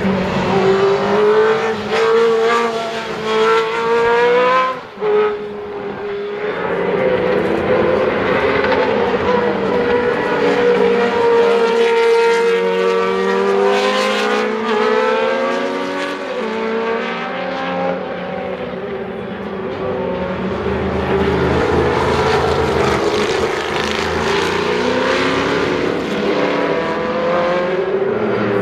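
Historic Can-Am race car engines accelerating hard and passing by. The engine note climbs in pitch and drops back at each gear change, repeatedly, with a short lull about five seconds in.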